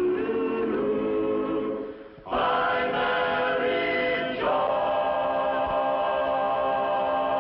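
A vocal chorus singing a sitcom theme song. It dips briefly about two seconds in, comes back in, and ends on a long held chord.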